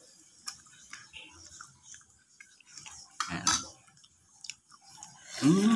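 Scattered small clicks and taps of a metal spoon against a bowl and of a boiled balut eggshell being cracked and picked off by hand, with one louder scrape about three seconds in.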